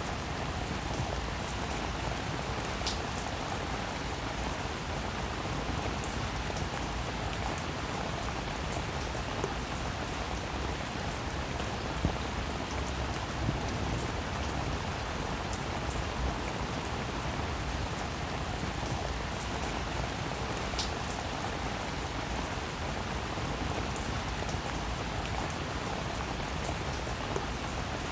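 Steady rain falling, an even hiss with scattered drop ticks and a few sharper drips on a surface.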